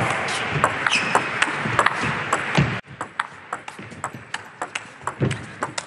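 Celluloid-type table tennis ball being struck by rubber-faced rackets and bouncing on the table during a fast rally: a quick run of sharp, hollow clicks. A steady background hiss drops away suddenly about halfway through.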